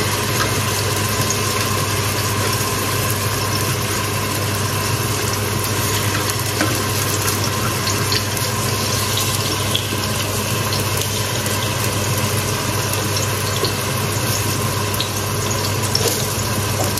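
Chopped onions sizzling and frying in hot oil in a steel pot, a steady sizzle with fine crackle over a constant low hum.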